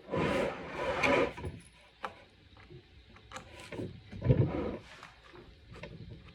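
Handling noise from a wooden accordion being worked on by hand: rubbing and scraping in the first second or so, scattered clicks, and a louder knock a little past four seconds in.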